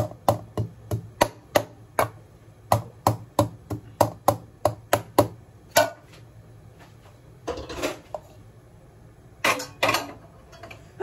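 Fresh ginger being pounded in a steel pot: sharp knocks at about three a second that stop about six seconds in. A few short noisy bursts follow in the later part.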